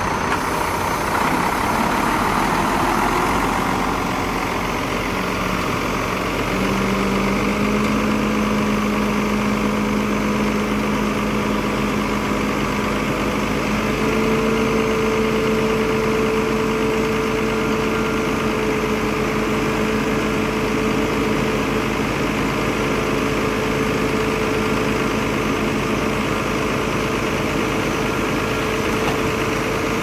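Heavy diesel engine of earthmoving machinery running steadily, its note stepping up in pitch about six seconds in and again around fourteen seconds in.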